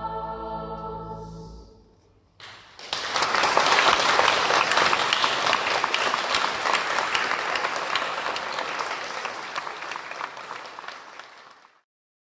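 A choir and organ hold a final chord that dies away; about a second later the audience breaks into applause, loudest at first and then slowly fading before it cuts off just before the end.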